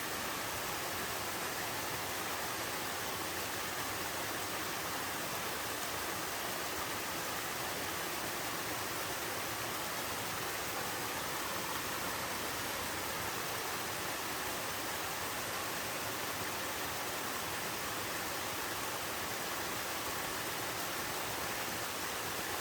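Waterfall and mountain stream: water pouring over rock tiers into pools, a steady full rushing that does not change.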